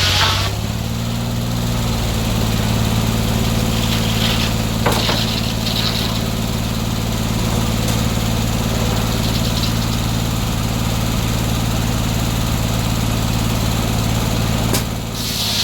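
Gasoline engine of a circular sawmill running steadily with the inserted-tooth blade spinning free between cuts. The cut ends just after the start, there is a brief rasp about five seconds in, and the blade bites into the log again near the end.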